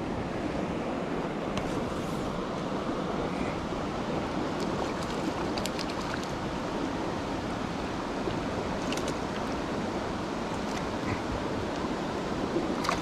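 Steady rushing of a large mountain river's current flowing past, an even wash of water noise with a few faint clicks over it.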